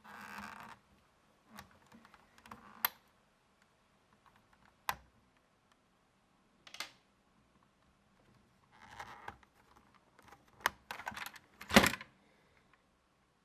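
Lego plastic parts clicking and rattling as the brick-shooter mechanism is handled: scattered sharp clicks and short scrapes, coming irregularly, with the loudest burst of clicks near the end.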